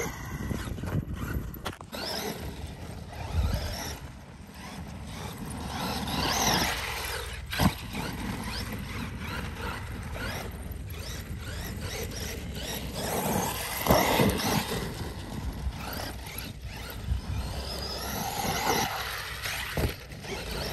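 Traxxas E-Revo 2.0 RC truck's electric motor whining up and down in pitch as it speeds up and slows down, several times. A few sharp knocks stand out, the loudest about two-thirds of the way through.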